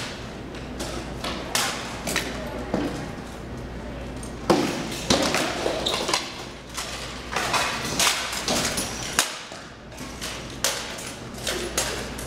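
Sword blows in SCA heavy armored combat: rattan swords striking shields, helmets and armor in quick, irregular hits, ringing in a large hall, with the loudest blow about four and a half seconds in.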